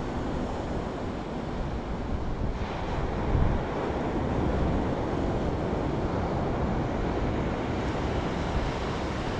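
Surf washing onto a sandy beach in a steady rush, with wind rumbling on the microphone.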